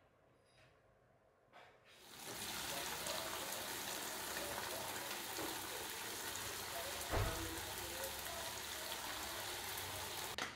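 Water spraying from a garden-hose spray nozzle onto a car's body panels, a steady hiss and patter. It starts about two seconds in and cuts off just before the end, with a single dull thump partway through.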